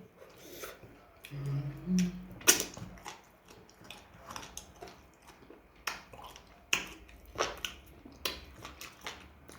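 Close-miked eating: chewing and mouth smacks with many short, sharp clicks throughout, and a brief hummed "mm" between about one and two seconds in.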